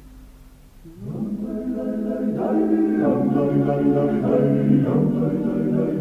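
Georgian folk choir singing in several parts over a held low drone. For the first second only the quiet drone sounds; then the upper voices come in with a rising slide and the chord swells and shifts.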